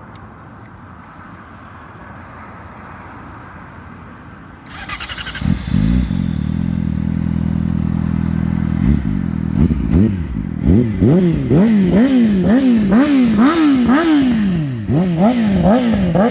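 2018 Yamaha R6 inline-four with an Akrapovič full exhaust system being started: after a few seconds of quiet background, the starter cranks briefly and the engine catches and idles steadily. From about ten seconds in, the throttle is blipped over and over, the revs rising and dropping about twice a second.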